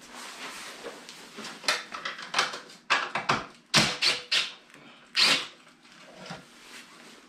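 About six short bursts from a cordless drill-driver on the fasteners of a snowmobile's rear bumper, with rattling and scraping of the parts in between.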